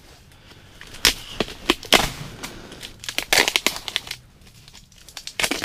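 Clear plastic wrap on a pack of pressed sawdust fuel briquettes being torn and crinkled by hand, with a few sharp snaps followed by stretches of crackling.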